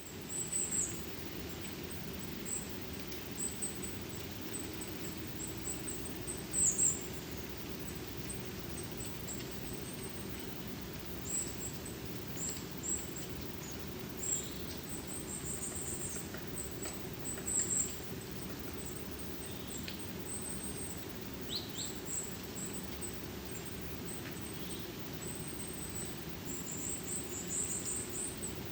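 Small forest birds, mostly tits, giving many short, very high, thin calls scattered throughout, over a steady low forest hush.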